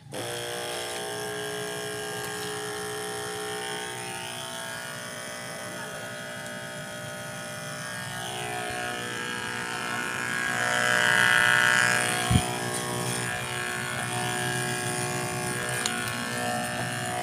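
12-volt DC mini water pump (160 psi car-washer type) starting the instant its barrel plug is connected, then running steadily with an even motor hum. It grows louder about ten seconds in and then eases off, with one sharp knock just after.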